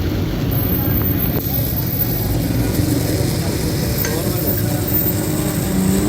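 Steady, even noise from metalworking machinery in a workshop.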